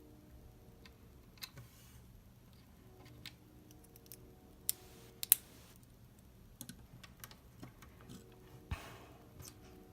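Plastic Lego pieces clicking and tapping as they are handled and pressed together: scattered sharp clicks, the loudest about five seconds in, and a brief rustle near the end.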